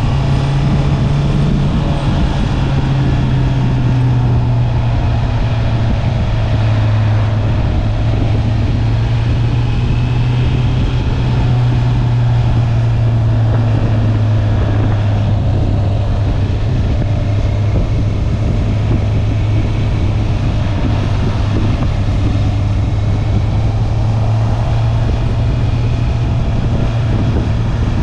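Honda CB650R's inline-four engine on its stock exhaust, running at a fairly steady pitch while the motorcycle cruises, with only slight rises and falls in revs.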